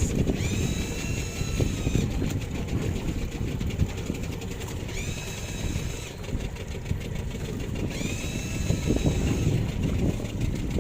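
A small engine running steadily. A high, whistle-like call of about a second and a half, starting with a short glide, repeats roughly every three to four seconds over it.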